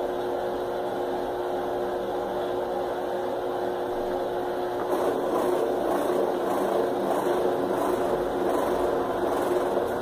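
Electrolux LF11 top-loading washing machine spinning its basket, the motor and belt drive giving a steady whirring hum. About five seconds in it grows a little louder and a regular pulsing sets in, about twice a second.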